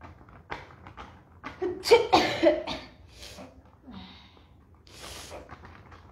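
A person coughing several times in a row about two seconds in, with breathy sounds and faint voice around it.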